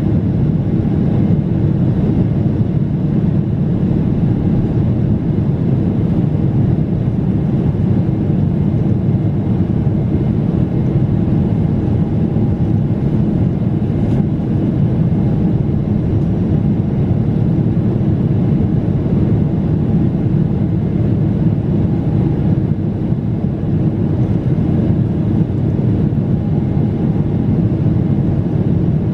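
Steady low rumble inside the cabin of a Boeing 777-300ER with its GE90 jet engines running, with a faint steady tone above it. A single small click comes about halfway through.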